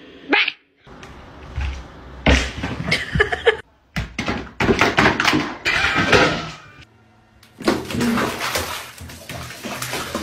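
Music in short stretches, broken off abruptly three times.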